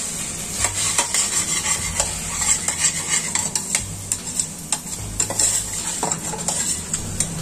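Chopped tomatoes and onions sizzling in oil in a stainless-steel pot, while a slotted metal spatula stirs and scrapes against the pot with irregular clicks and scrapes.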